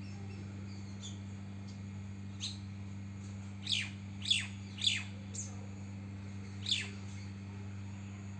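Five short, high chirps, each falling quickly in pitch, three of them in quick succession in the middle, over a steady low hum.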